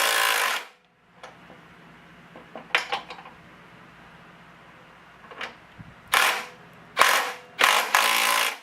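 A wrench turning the nut on the front wheel bolt of a John Deere 14SB mower deck: short bursts of rapid metal clicking, one at the start, a few faint clicks about three seconds in, then three bursts close together near the end as the nut is run up tight.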